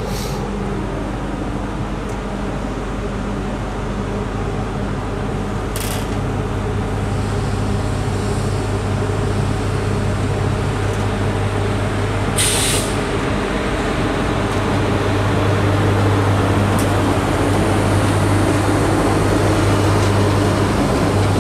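SNCF BB 22200 electric locomotive pulling a Corail Intercités train slowly out of the station, its motors and cooling fans making a steady hum that grows louder as it goes. Two short hisses of compressed air come about a third and about halfway through.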